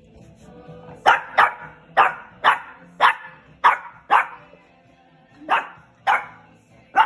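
French bulldog puppy barking up at another dog: about ten short, high barks, a quick run of seven starting about a second in, then a brief pause and three more.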